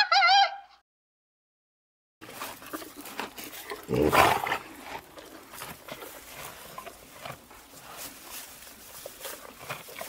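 Gibbon calling: a pitched, wavering hoot that breaks off under a second in. After a short silence, open-air background noise follows, with a brief loud burst about four seconds in and faint scattered ticks and rustles.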